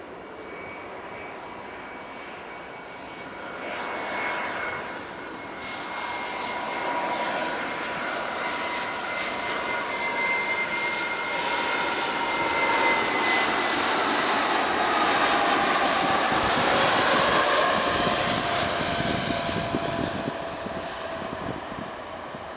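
Airbus A320's CFM56 turbofan engines on landing approach: a jet whine that grows louder to a peak about three-quarters of the way through, falling in pitch as the airliner passes, then fading.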